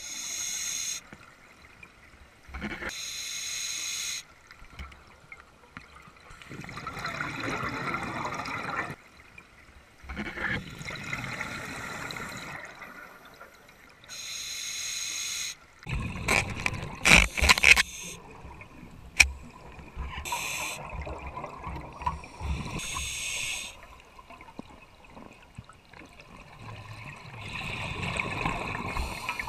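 Scuba regulator breathing heard underwater: short hissing inhalations alternating with longer bursts of gurgling exhaled bubbles, in a slow repeating cycle. A cluster of sharp clicks and knocks comes about halfway through.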